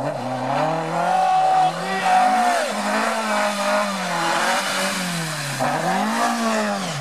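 Ford Escort Mk2 rally car's engine revving hard through a slippery corner, its pitch rising and falling with the throttle and gear changes. It swells up and falls away near the end as the car passes close by.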